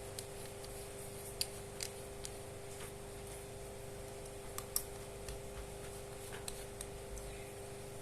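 Scattered light clicks and taps from small objects being handled, with a faint steady hum underneath.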